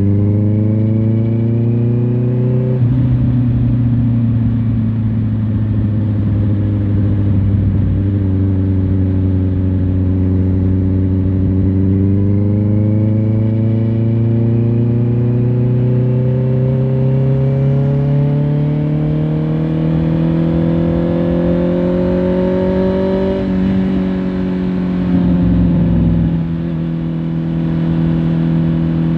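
Honda CBR650R inline-four engine pulling while riding: the pitch rises, drops suddenly about three seconds in with a gear change, climbs slowly for a long stretch, then drops again near the end.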